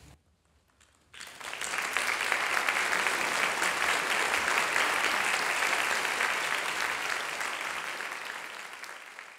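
Audience applauding in a hall, breaking out suddenly about a second in after a brief hush and slowly fading near the end.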